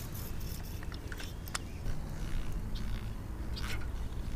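Cheap plastic spinning reel being cranked to retrieve a lure, with a few light clicks, over a low rumble of wind on the microphone.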